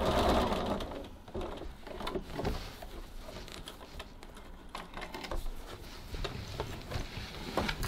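Sewing machine stitching through layered fabric, stopping about a second in. After it stops come soft rustles and clicks as the fabric is pulled out from under the presser foot.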